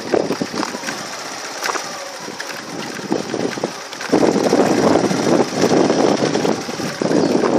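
A vehicle running and rattling, heard from on board as it moves along. The noise drops for a few seconds, then grows louder again about four seconds in.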